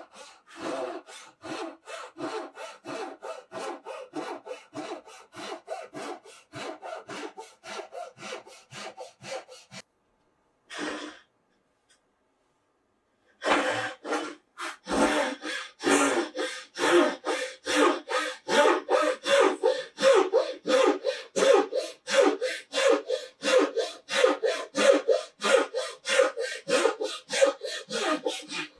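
Japanese dozuki pull saw (a SUIZAN Dozuki for Kumiko) cutting wood in steady, even strokes, about three a second. The strokes stop for a few seconds about ten seconds in, then start again louder.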